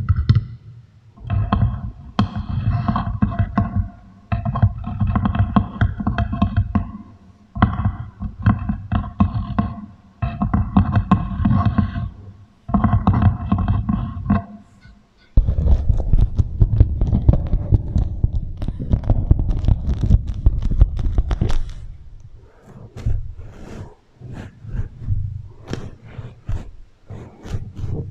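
Beeswax food wrap crinkled and rubbed close to the microphone with an echo effect, meant as a rain-like sound, in bursts of a few seconds with a heavy low rumble. After about 22 s it thins to scattered light crackles and taps.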